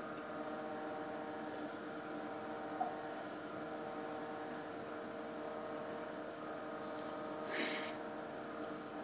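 Steady electrical hum of lab equipment, several steady tones together, with a faint click about three seconds in and a short hiss about seven and a half seconds in.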